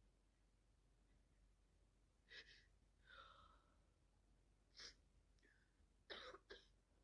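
Faint coughs and sniffs from a woman with a heavy head cold: a short burst about two seconds in, another near the middle, and a quick double one near the end.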